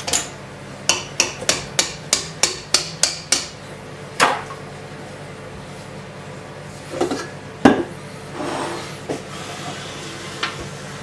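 A stand mixer's wire whisk knocked against the rim of its stainless steel bowl to shake off cake batter: about ten quick taps, roughly three a second, then a single knock and a few scattered clanks as the whisk and bowl are handled.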